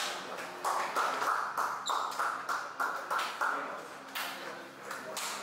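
A quick run of sharp hand slaps, about three a second, then scattered softer pats: players slapping each other's backs as they hug in a locker room.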